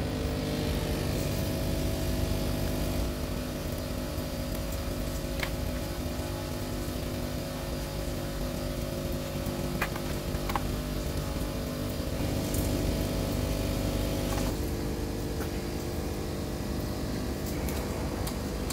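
Steady hum of workshop machinery running, with a few light metallic clicks from tools and parts being handled. Part of the hum cuts out about three-quarters of the way through.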